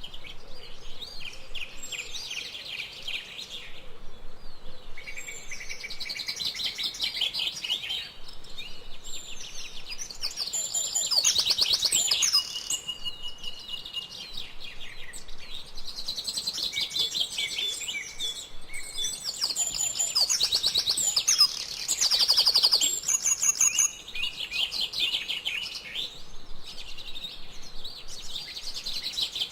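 Many songbirds chirping and trilling at once in a continuous chorus, with louder bouts of rapid calls about a third of the way in and again past two-thirds.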